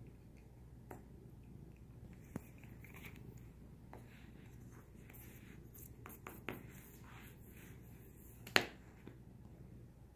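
A pencil scraping and tapping on a paper-covered desk as a cat bats at it: faint scratching with a few light clicks and one sharp click near the end.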